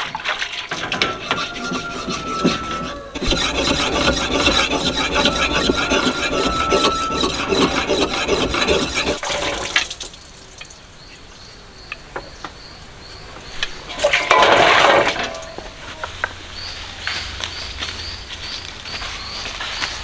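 A hand tool scraping rapidly and rhythmically against a metal basin for about the first half. After that it goes quieter, with one brief loud rustling burst and, near the end, short high chirps repeating at an even pace.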